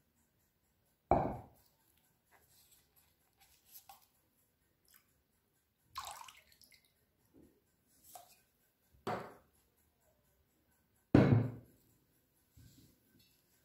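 Kitchenware handled on a wooden cutting board: four short knocks, the last the loudest, with faint ticks between them. About six seconds in, lemon juice pours and drips into a glass bowl.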